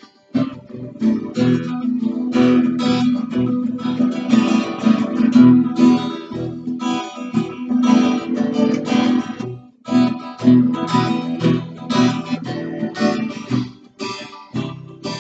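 Solo acoustic guitar strummed in chords, without singing, with short breaks about ten seconds in and near the end.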